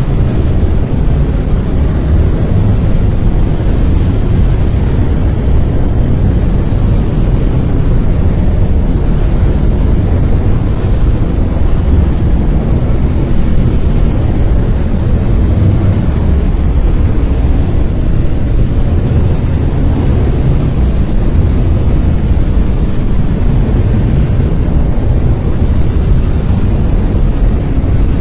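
Steady brown noise: an even, deep rumbling hiss, strongest in the bass and fading toward the treble, with no changes.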